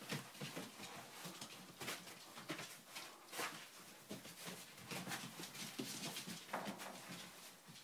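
Adult Labradoodle and puppies scuffling and playing in shredded-paper bedding: an irregular run of short rustles and scrapes from paws and bodies moving through the paper.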